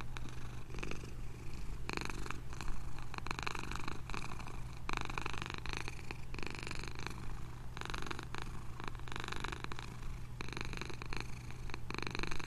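A domestic cat purring: a steady low rumble that swells and eases with each breath, every second or two.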